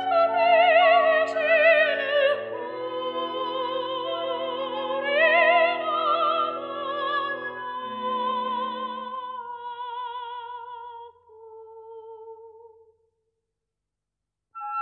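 Opera music: a high singing voice holding long notes with wide vibrato over sustained orchestral chords. It dies away about eleven seconds in, and after a brief silence new music starts near the end.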